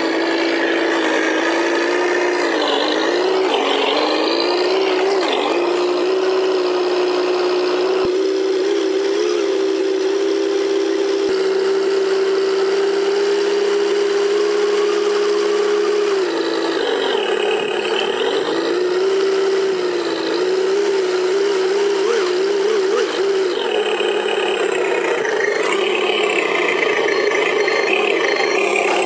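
Simulated V8 engine sound for a Tamiya M1025 Hummer RC truck, running continuously. Its pitch rises and falls with the throttle a few seconds in and again between about 16 and 24 seconds, and holds steady in between.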